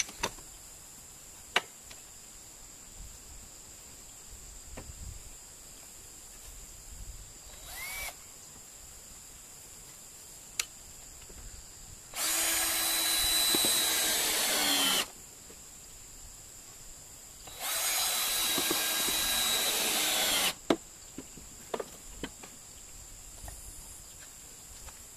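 Cordless drill running in two bursts of about three seconds each, working into the wooden posts, its whine dipping slightly as the first run ends. A few light knocks of wood come before and after.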